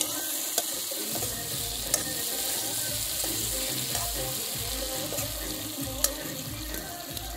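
Vegetables frying in a wok over a wood fire, a steady sizzle while a metal spatula stirs them, with a few sharp clicks.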